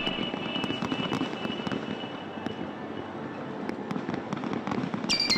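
Large fireworks display: dense, steady crackling peppered with many sharp pops. Electronic music comes in near the end.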